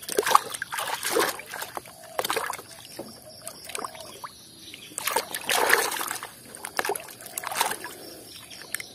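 Water splashing and sloshing in a basin as a hand swishes and scrubs a toy rifle in muddy water, in irregular bursts, the longest about five seconds in.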